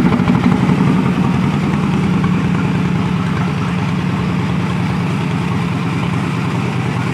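Hot-rodded lawn mower engine settling into a steady idle with an even, rapid putter, easing slightly in loudness over the first second or two.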